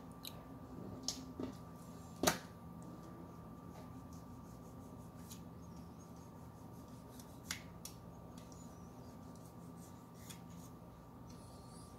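A fillet knife slicing a small jack fillet on a plastic cutting board: faint scraping of the blade and a few sharp clicks as it meets the board. The loudest click comes about two seconds in. A steady low hum runs underneath.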